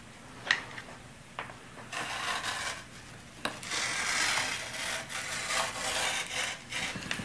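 Rotary (pizza-wheel) cutter rolling through carbon fiber cloth on an MDF board: a few short clicks, then rasping cutting strokes from about two seconds in.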